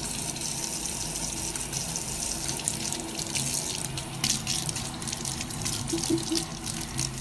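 Water running steadily, a continuous hiss like a tap running into a sink.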